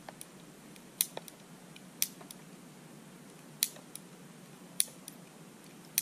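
Ruger Bearcat single-action .22 revolver's cylinder being turned by hand, one chamber at a time, each indexing with a sharp metallic click about once a second. Fainter ticks come between the clicks.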